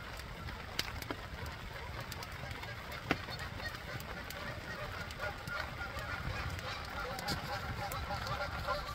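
A flock of geese honking, many short calls overlapping and growing busier about halfway through.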